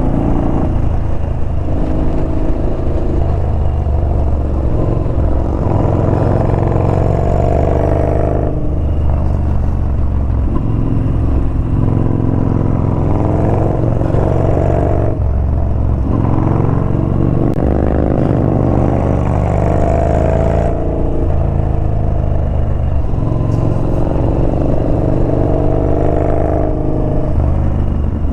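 Yamaha Bolt's air-cooled V-twin engine on the move through mountain bends, its pitch climbing under throttle and then dropping off sharply about four times as the rider shifts or rolls off for the turns.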